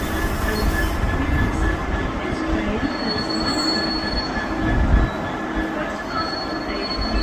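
Train running along the platform tracks: a steady rumble with thin, high wheel-squeal tones over it, and a higher squeal from about three to five seconds in.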